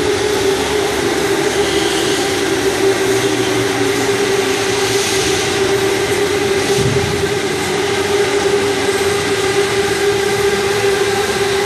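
Several electric go-karts running laps on an indoor track, their motors giving a steady whine over a continuous wash of noise.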